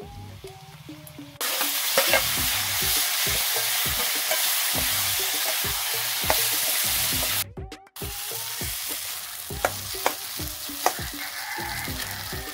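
Vegetables (tomato and onion, then potato) sizzling in hot oil in a metal karahi, with a metal spoon scraping and clicking against the pan as they are stirred. The sizzle starts abruptly a second or so in, drops out briefly just past halfway, and comes back quieter.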